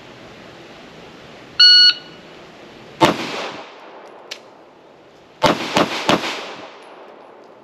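A shot timer gives one short beep, then a Glock 19 9mm pistol fires one shot about a second and a half later, followed by three quick shots close together, each with a short echo.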